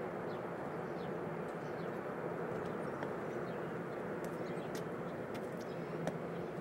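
Steady outdoor background hum and hiss, with faint light ticks scattered through it.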